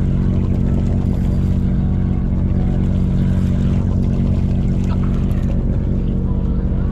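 Fishing boat's engine running steadily, a low drone with a constant pitch.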